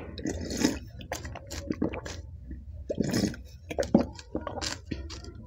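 Close-miked slurping and sipping of spicy pani puri water from a bowl, in several separate slurps with wet mouth clicks.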